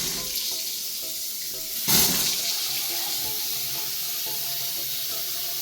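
Water running steadily from a newly installed faucet turned on full, with a louder surge about two seconds in. The fixture is being tested for leaks.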